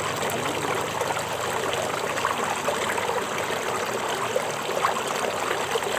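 Small rocky stream running over stones: a steady rush of water.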